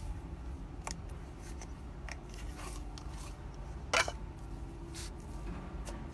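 Thick white slime being worked by hand, pulled out of a glass jar and pressed with the fingers, giving scattered sticky clicks and pops, the loudest about four seconds in.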